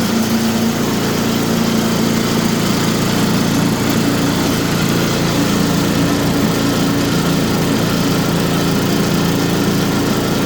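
Small engine of a repaired MTD snowblower running steadily at speed. Its pitch shifts slightly about a second in and again midway.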